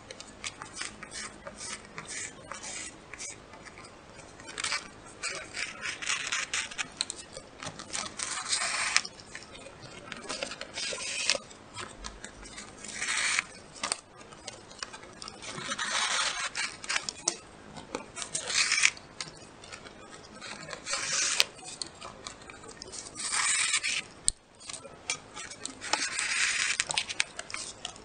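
Shoelace being drawn through the punched holes of a card lacing board: irregular rasping, rubbing strokes, each lasting about a second, with the card rustling as it is handled.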